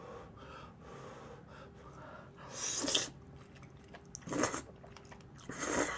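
Noodles being slurped: three short, loud slurps of creamy udon in the second half, each under half a second and about a second and a half apart.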